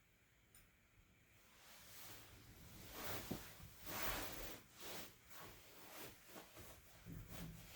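A run of soft rustling and brushing swishes, building about a second and a half in and loudest in the middle, from quiet handling during the preparation of the charcoal fire.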